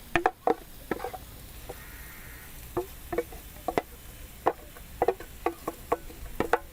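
A spoon knocking and scraping against a cooking pan in irregular taps, about one to two a second, each with a short ring. This is the sound of boiled mashed potato being tipped into sautéed onion masala and stirred in.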